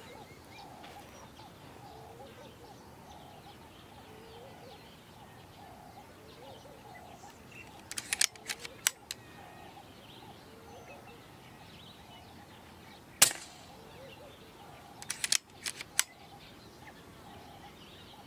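Moderated .22 Daystate Alpha Wolf PCP air rifle firing once: a single sharp crack about two-thirds of the way through, the loudest sound here. Short clusters of quick clicks come a few seconds before and after the shot. A bird repeats a short call over and over in the background.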